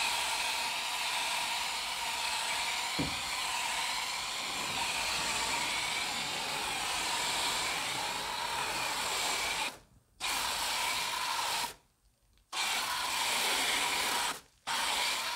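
A hose-powered snow foam gun sprays soapy foam onto a car with a steady hiss. The spray cuts out three times in the second half, once only for a moment, as the trigger is let go.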